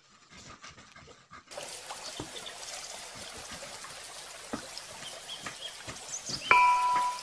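Irregular light knocks and taps from a knife slicing cabbage and a wooden pestle knocking in a stone mortar, over a steady hiss. Near the end, background music with bright glockenspiel-like chimes comes in.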